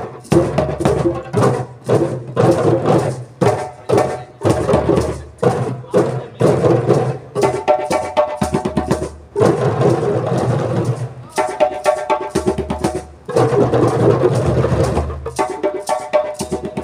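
A group of djembes played by hand together in a steady, fast rhythm of slaps and tones, with a few brief breaks in the playing.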